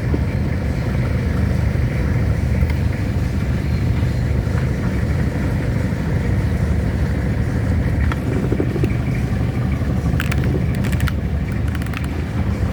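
Toyota Kijang Kapsul's diesel engine running steadily with a low, even rumble. A few light clicks come about ten seconds in.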